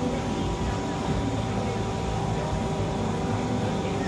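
Steady machine hum holding several constant tones, with faint background voices mixed in.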